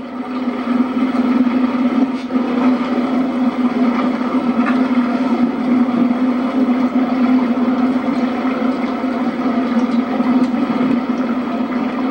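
A motorboat's engine running steadily under way, a constant low drone.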